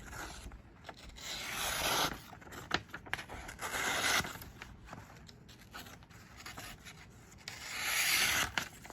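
Multi-tool's stainless-steel knife blade slicing through a sheet of paper: three hissing cuts, each about a second long, with paper rustling between them. The blade cuts fairly cleanly.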